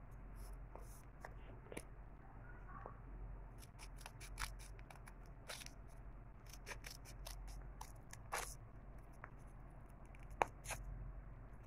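Small scissors snipping through folded paper: faint, irregular snips and clicks, with the sharpest one near the end.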